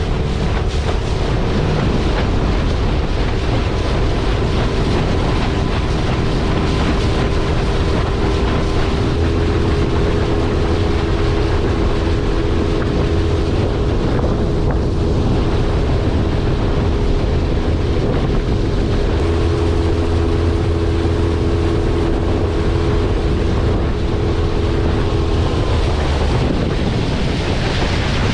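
Jon boat's motor running steadily under way, with heavy wind rushing over the microphone; the motor's steady tone stops near the end, leaving wind and water noise.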